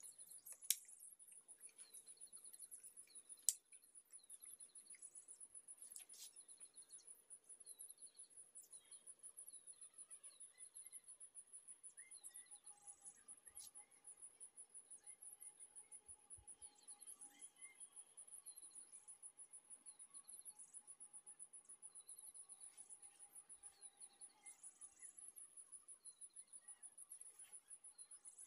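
Faint, steady, high-pitched pulsing trill of insects such as crickets. Two sharp clicks stand out near the start, one about a second in and another about three and a half seconds in.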